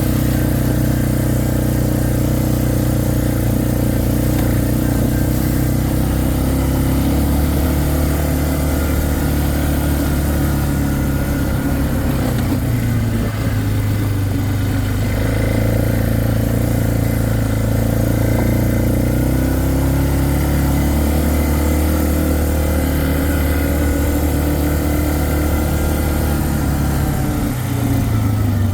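Four-wheeler (ATV) engine running while the machine is ridden, its speed rising and falling a few times, with a brief drop near the end.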